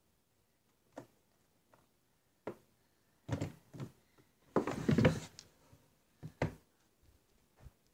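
A run of uneven knocks, thumps and rustles from handling the filming phone while walking. The loudest is a longer rustling thump about five seconds in.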